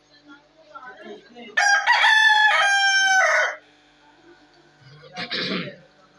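A rooster crowing once, a loud call of about two seconds that starts a second and a half in. A short rough sound follows near the end.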